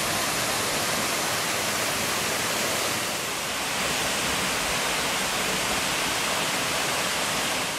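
Waterfall: a loud, steady rush of falling water, easing slightly for a moment about three seconds in.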